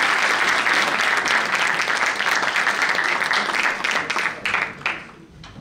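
Audience applauding, dense clapping that thins out into a few scattered claps and fades away over the last second or so.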